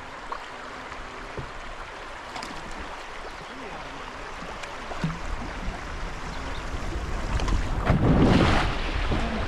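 Rushing whitewater of a river rapid with wind buffeting the microphone, growing louder, with a strong surge of noise about eight seconds in.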